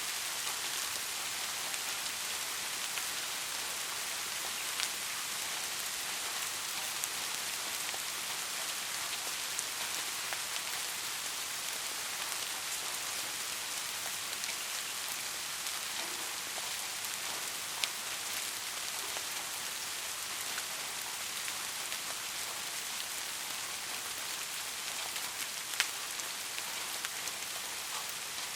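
Steady rain falling, an even hiss with scattered individual drops ticking, a few louder single drops standing out now and then.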